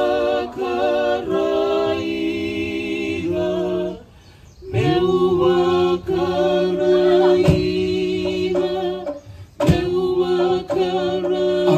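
Live Polynesian chant: voices singing long, held notes in slow phrases, breaking off briefly about four seconds in and again near the end.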